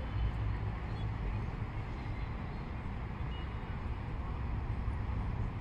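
Steady low rumble of road traffic on a city street, with no single vehicle standing out.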